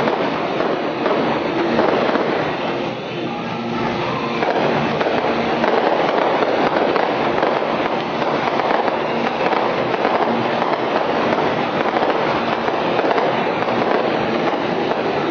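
Aerial fireworks bursting in a dense, continuous barrage, the reports blending into a steady din.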